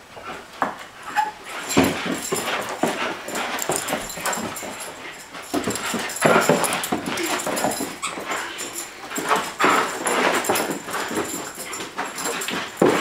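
A dog whining and yipping while racing around in a burst of zoomies, with scattered thumps throughout.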